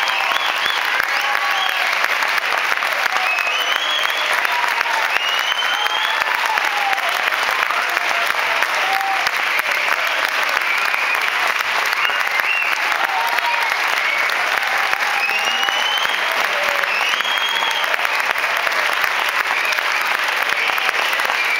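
Large theatre audience clapping steadily, with scattered whoops and calls rising and falling over the applause.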